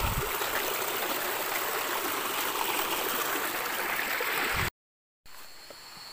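Stream water running steadily over rocks. About three-quarters of the way through it cuts off into a half-second of dead silence, then returns quieter, with a thin steady high tone over it.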